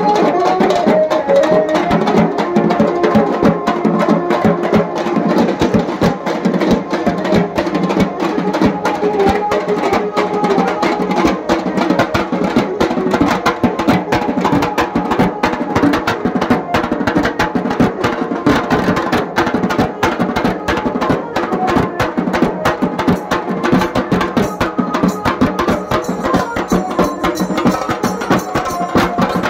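A group of dhol drummers playing together, a fast and continuous beat of stick strokes on barrel drums.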